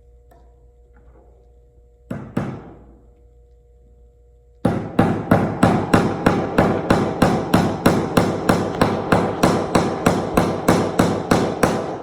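A hammer driving a nail into the wood of a toolbox kit: two taps to start the nail, then a steady run of about twenty-five quick, even strikes, roughly three or four a second.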